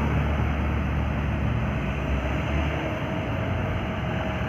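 Road traffic: a passing vehicle's engine running with a low rumble and tyre noise, the rumble easing a little about three seconds in.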